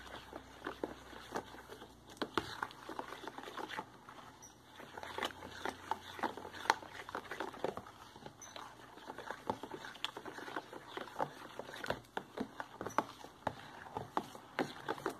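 A plastic spatula stirring a liquid soap mixture in a bowl: irregular light taps and scrapes against the bowl's side, several a second.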